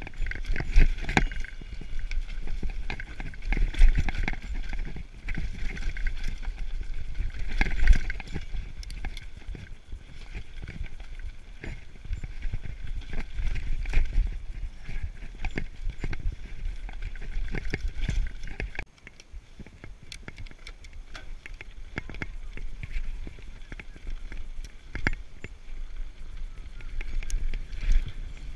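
Mountain bike rattling over a rocky trail: a run of clattering knocks and clicks from the bike as it hits rocks, over tyre noise and a low wind rumble on the camera microphone. It gets quieter about two-thirds of the way through.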